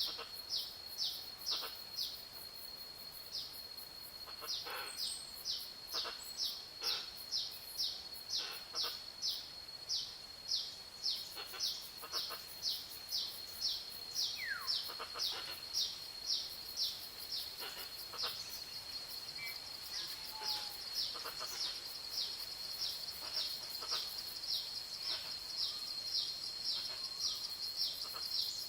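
Forest ambience: a bird repeats a short, high call about twice a second over a steady high-pitched whine, with a few fainter calls from other birds.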